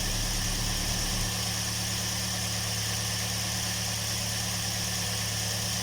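Rebuilt Toyota Vios 1NZ-FE inline-four engine idling steadily and quietly, with no knocking now that the bearings and pistons have been renewed.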